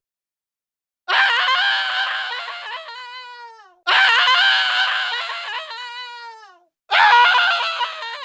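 Three separate screams from a sound-effects compilation, each loud, high and about two and a half seconds long, falling in pitch as it fades out. They start about a second in, about four seconds in and about seven seconds in, with dead silence between them.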